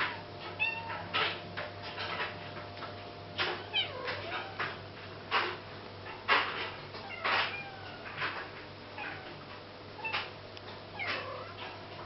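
Kittens mewing in short, high, falling calls, with irregular sharp clicks between them, over a steady low hum.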